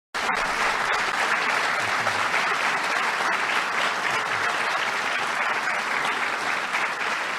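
Large audience applauding steadily, starting abruptly just after the beginning.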